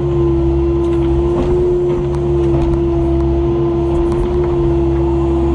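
Excavator's diesel engine running steadily, with a constant high whine held over the low engine drone while the machine handles a stump over the fire.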